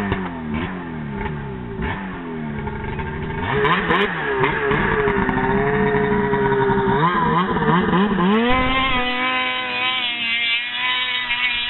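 Ski-Doo 600RS race snowmobile with a 2008 800R two-stroke twin engine, Dynoport exhaust and custom can, revving up and down and then held at high revs, growing louder as it runs in and speeds past close by about ten seconds in.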